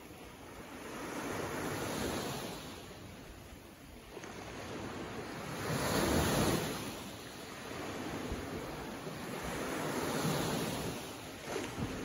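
Small waves breaking and washing up a sandy beach, in three swells about four seconds apart. The loudest comes around the middle.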